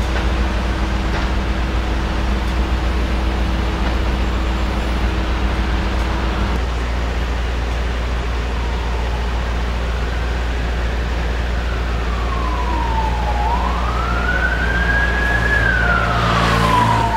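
Emergency-vehicle siren wailing, a slow tone that falls, rises again and falls, starting about ten seconds in. Underneath, a steady low engine hum of idling traffic.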